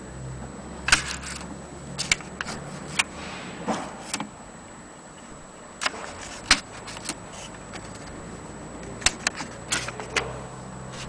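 1927 Mignon typewriter clacking in irregular, widely spaced mechanical strikes, about a dozen, some in quick pairs.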